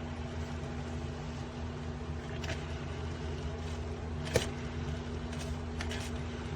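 A steady low hum, with a faint tick about two and a half seconds in and a sharper click a couple of seconds later.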